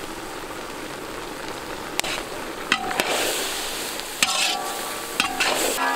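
Chicken, vegetables and dried herbs frying in oil in a large iron wok, a steady sizzle. A metal ladle knocks and scrapes against the pan as the mix is stirred, with sharp knocks about two, three, four and five seconds in.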